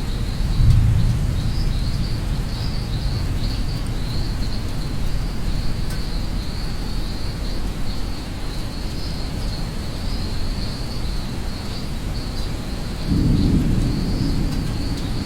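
Thunderstorm rain with rolling thunder: low rumbles swell about a second in and again near the end, over steady rain hiss and a continuous high insect trill.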